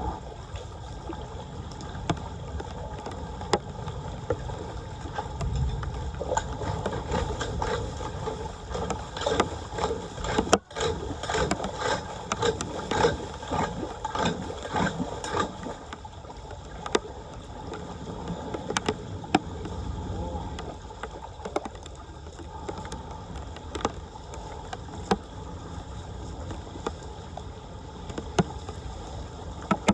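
Floodwater splashing and churning, with scattered clicks and knocks throughout and a busier stretch in the middle.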